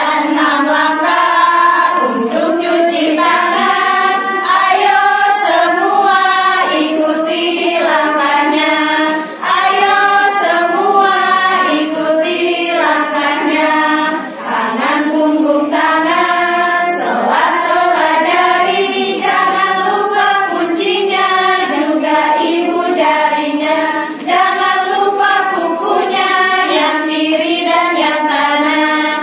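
A group of women singing together in unison, a hand-washing song sung in steady phrases with short breaks between lines.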